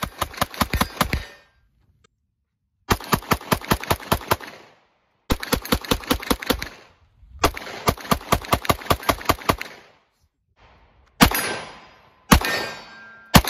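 Semi-automatic pistol fired in fast strings of about ten to fifteen shots each, around seven or eight shots a second, four strings in all with short pauses between. Near the end come a few single, louder bangs, each with a long fading tail.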